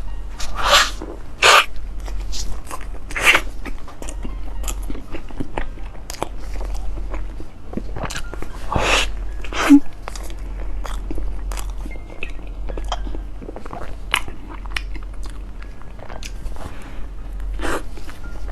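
Close-up eating sounds of a person biting into and chewing soft bread filled with cheese and purple rice: wet mouth clicks with a few louder bites, over a steady low hum.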